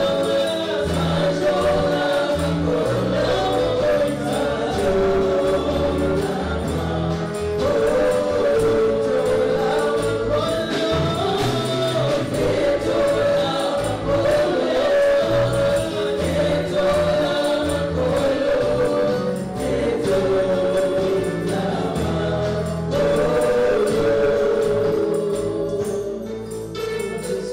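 Congolese gospel music: a choir singing over a bass line with tambourine-like percussion.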